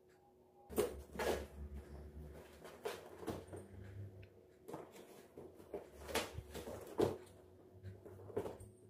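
Cats pawing and clawing at a cardboard box: irregular scratches and knocks on the cardboard, starting about a second in.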